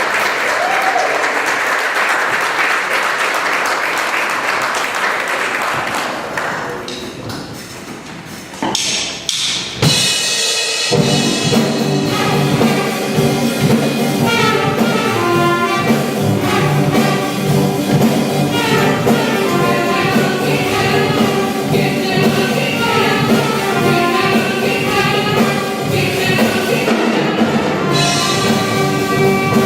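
Audience applause dying away over the first several seconds, a few knocks, then about eleven seconds in a live band with a brass section starts a song, horns and rhythm section playing over a steady beat.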